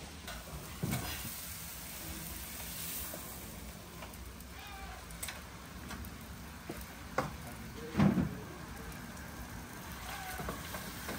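Steady low background noise with a few scattered knocks; the loudest, a dull thump, comes about eight seconds in.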